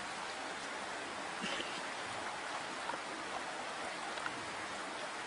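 Steady hiss of running water from a small woodland stream.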